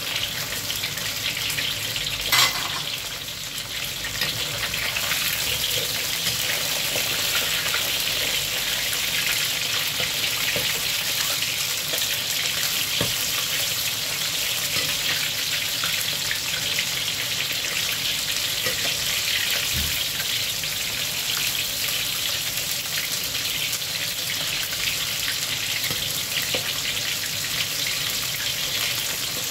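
Starch-coated pork ribs deep-frying in hot oil in a wok: a steady, dense sizzle. One sharp click sounds about two and a half seconds in.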